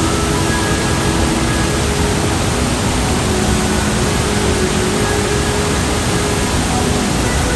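Steady rush of a large waterfall, a dense, even roar of falling water with no breaks. The flow is high, the river swollen by the previous days' rain.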